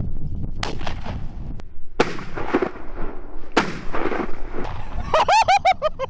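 Two shotgun shots about a second and a half apart, each fading out briefly after the blast.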